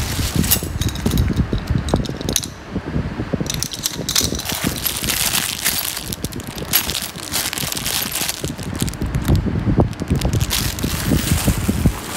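Cellophane packaging crinkling and rustling while the parts of a laundry organizer are handled, with small metal bolts and washers clinking in their plastic bag.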